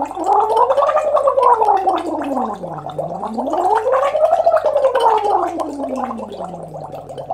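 A woman voicing through a straw into a pint glass of water, a Lax Vox straw-phonation voice exercise: her voice slides from low to high and back down twice, with the water bubbling throughout.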